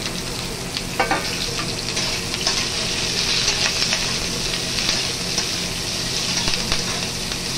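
Onion, ginger, green chillies, cashews and garlic sizzling in hot vegetable oil in a metal kadai, with a spatula stirring and scraping them around the pan; a sharper scrape about a second in.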